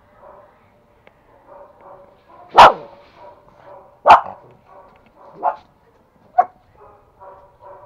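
Pomeranian barking: two loud, sharp barks about two and a half and four seconds in, then two softer ones. Fainter, quick barking from another dog runs underneath.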